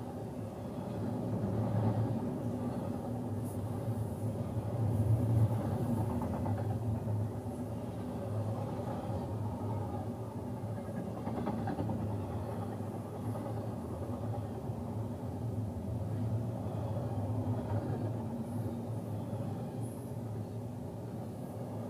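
Intermodal container freight train passing close by, a steady rumble of its wheels on the rails heard through the glass of a car, swelling briefly a couple of times.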